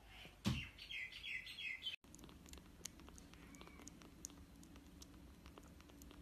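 A thump, then kittens giving a quick run of short, high chirping mews. After a cut, a newborn kitten suckles from a feeding syringe, its mouth making faint irregular clicks over a steady low hum.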